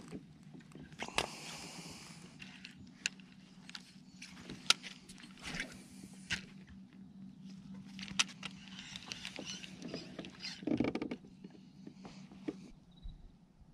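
Handling noise on a fishing kayak: scattered sharp clicks and knocks, with a few short scrapes, over a steady low hum that stops near the end.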